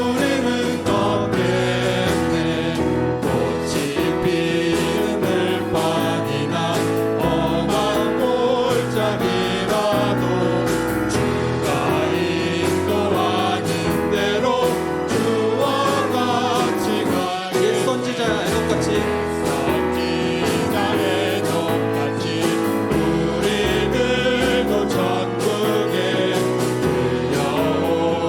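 Gospel praise song: a group of voices singing together over instrumental accompaniment with a steady beat.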